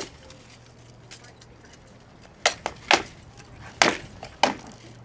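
Rattan swords striking shields and armour in armoured combat: after a quiet couple of seconds, a run of about five sharp wooden whacks, two of them in quick succession.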